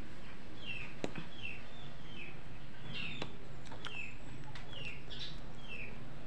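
A bird chirping over and over, short falling chirps about two a second, with a single sharp click about a second in.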